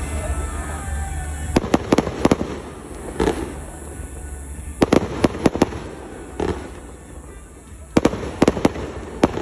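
Fireworks display: aerial shells bursting in quick clusters of three or four sharp bangs every few seconds, with a couple of deeper single booms in between.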